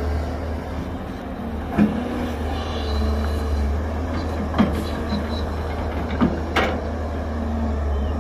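Heavy diesel earthmoving machinery running steadily with a low rumble. Four sharp metal knocks come through it, the loudest a little past the middle.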